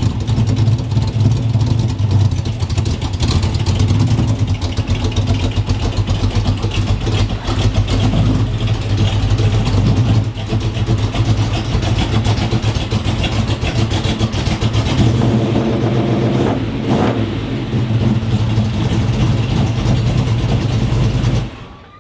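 1964 Chevelle's engine running steadily with a few light revs, then stopping abruptly near the end.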